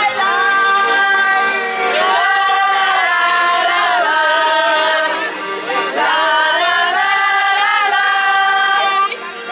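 A small group of women singing a folk song together in long held phrases, with an accordion playing along, mostly in the first couple of seconds.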